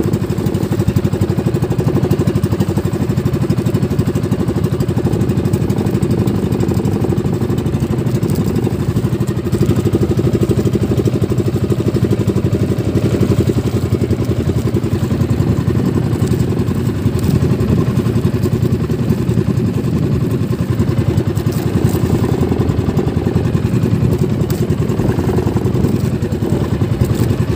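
Engine of a small motorized outrigger boat (bangka) running steadily at an even speed.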